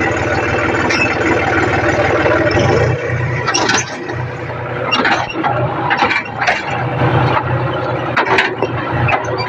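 John Deere 5050D tractor's three-cylinder diesel engine running steadily, heard from the driver's seat. From about three and a half seconds in, a series of sharp clanks and rattles sounds over the engine.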